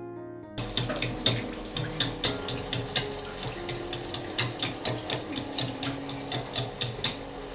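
Konda kavum batter frying in hot oil in a pot, with a spoon splashing oil over it in quick, even strokes: a string of sharp clicks, about three a second, over a hiss.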